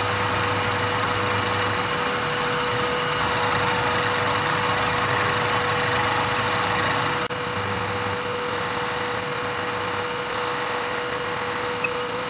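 Vertical milling machine's spindle running with a steady whine while an end mill cuts a chamfer on the corner of a metal block; the rushing cutting noise stops abruptly about seven seconds in, leaving the spindle running alone.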